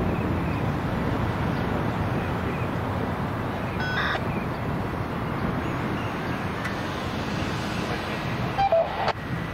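Steady low vehicle rumble, with a brief high chirp about four seconds in and a short, louder tone with a couple of clicks near the end.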